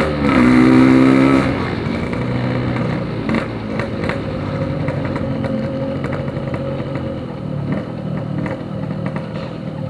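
Yamaha RX-King's 135cc two-stroke single through a Packing Power PK2 aftermarket exhaust, running high and loud for the first second and a half, then easing off to steadier, lower-revving running.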